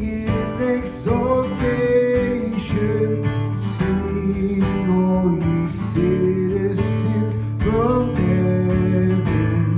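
Acoustic guitar music, strummed chords under a gliding melody line.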